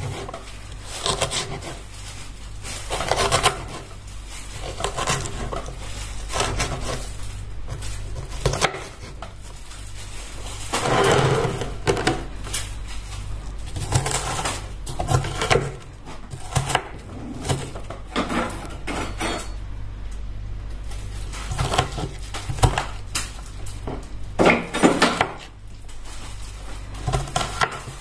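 Kitchen clatter: irregular knocks, clinks and scrapes of utensils and cookware being handled, over a steady low hum.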